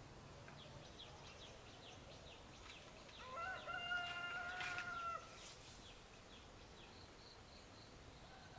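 A rooster crows once, a single long call of about two seconds in the middle, over the chirping of small birds.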